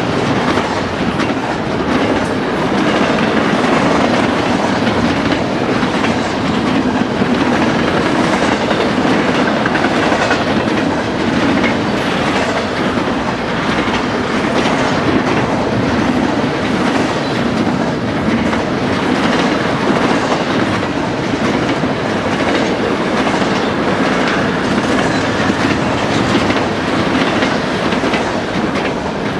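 Double-stack intermodal freight cars rolling past at speed: a steady, loud rumble of steel wheels on rail with a continuous run of clicks from the wheels over the track.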